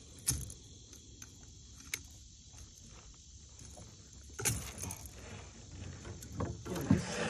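Pliers clinking against the hooks of a popper lure as they are worked out of a largemouth bass's mouth: a few sharp metallic clicks in the first two seconds, then louder scraping and handling from about four and a half seconds in.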